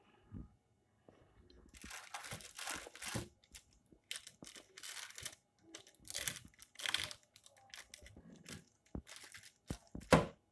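A kitchen knife pries bars of peanut brittle off baking paper. It starts about two seconds in, with irregular bursts of crunching, scraping and paper crinkling. The brittle is not yet fully set and still clings to the paper.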